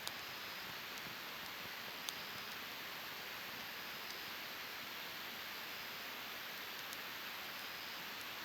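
Wood campfire burning with a steady hiss and a few sharp crackling pops.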